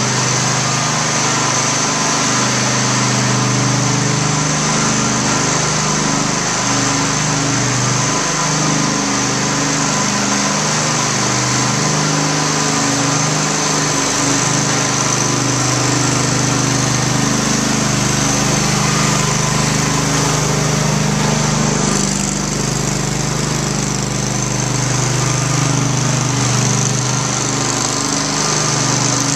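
Propane-powered Phoenix high-speed floor burnisher running steadily: the small engine drones while the spinning pad hisses against the tiled floor.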